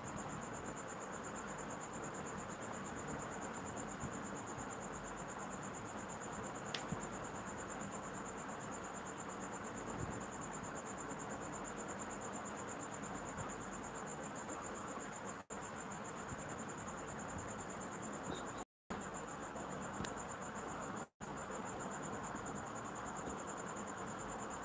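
A cricket trilling: one steady, high-pitched chirr that goes on without a break, over a steady low hiss. The sound cuts out briefly three times near the end.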